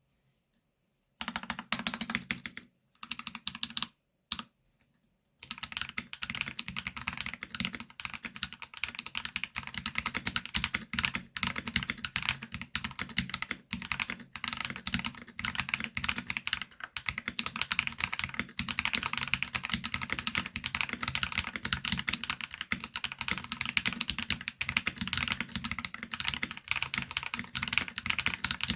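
Typing on a Royal Kludge RK68 mechanical keyboard fitted with Akko Jelly Purple tactile switches, a rapid clicky clatter of keystrokes. It starts about a second in with a few short runs, then goes on without a break from about five seconds in.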